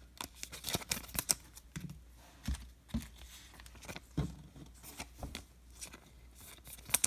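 Trading cards and their plastic packaging being handled on a table: scattered light clicks, taps and rustles, with a few soft thumps.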